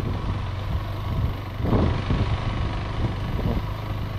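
Motorcycle engine running at low speed on a dirt track, a steady low hum with a louder surge a little under two seconds in.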